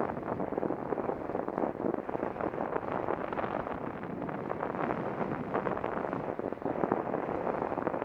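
Wind buffeting the microphone of a bicycle-mounted camera while riding: a steady, fluttering rush.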